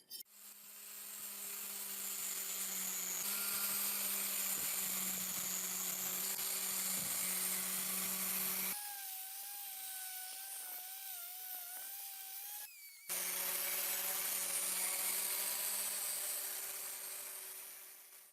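Electric power tool running steadily, a motor hum with a hiss of abrasive work on the metal. From about 9 to 13 s it gives way to a higher, wavering whine, then returns.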